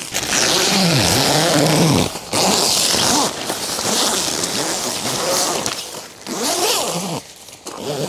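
Zipper on the fabric panels of a Minimal Works V-House L tent, pulled in several long runs with short breaks between them, its pitch swooping up and down with the speed of the pull.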